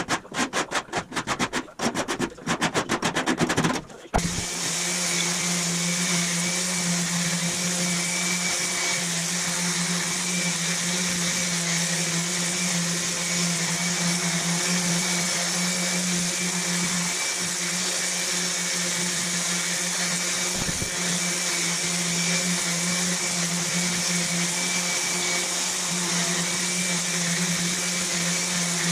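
Random orbital sander running steadily against a welded aluminum rolled edge, starting about four seconds in with a low steady hum under a broad hiss. Before it, a quick run of sharp clicks.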